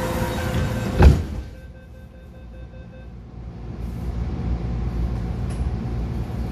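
Passenger doors of an MTR A-Train electric train sliding shut and closing with one loud thud about a second in. The carriage then goes quieter, and the train's low rumble builds up again a few seconds later.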